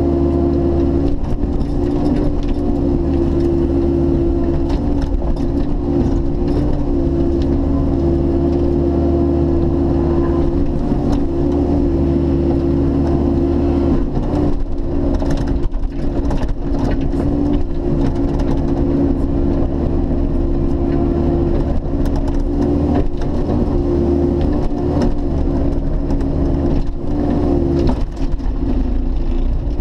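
Bobcat E50 mini excavator's diesel engine and hydraulics running steadily under load while the ripper tooth and thumb tear a stump and roots out of the ground, with scattered knocks and thumps, more of them in the second half.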